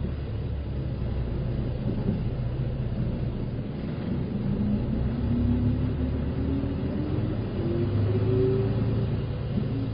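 Shimoden (Shimotsui Dentetsu) route bus running with a steady low engine rumble. About halfway in, the engine pitch climbs steadily for a few seconds as the bus pulls away and speeds up.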